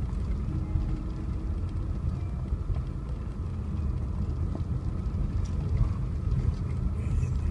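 Vehicle driving on a dirt road: a steady low rumble of engine and tyres on the unpaved surface.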